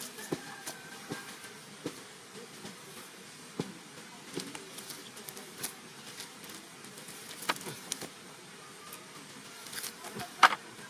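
Nylon cast net and grass being handled as fish are picked out of the mesh: scattered soft rustles and small clicks, with one sharper snap near the end.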